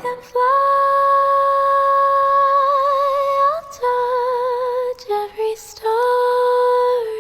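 Background music: a high female voice sings long held notes without words, with vibrato, in a slow lullaby-like song; one long note lasts about three seconds, followed by shorter notes.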